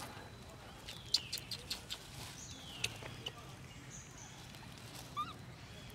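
Short, high animal calls falling in pitch, twice in the first half, among scattered sharp clicks over a low steady background.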